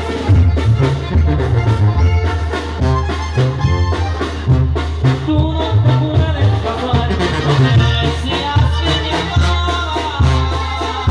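Oaxacan village wind band (banda de viento) playing a lively tune: brass and woodwinds over a steady drum beat and a stepping bass line.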